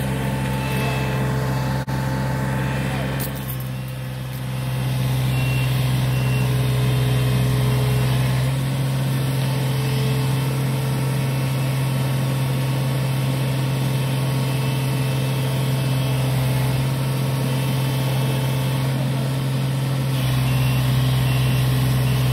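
John Deere 35D mini excavator's diesel engine running steadily, getting louder about four or five seconds in as its hydraulics take the load and the boom lifts.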